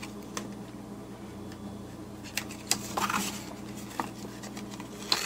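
Hands handling a paper recipe card and ribbon: a few faint taps and rustles, scattered and irregular, over a steady low hum.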